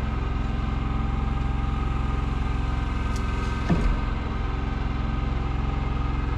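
Engine of a work lift idling steadily, an even hum that holds the same pitch throughout.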